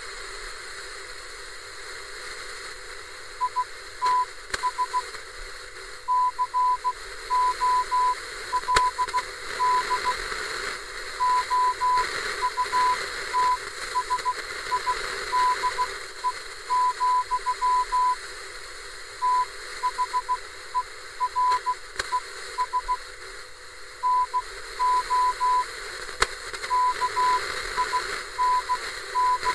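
Morse code: a single steady beep tone keyed on and off in groups of short and long beeps, over a continuous bed of radio static hiss.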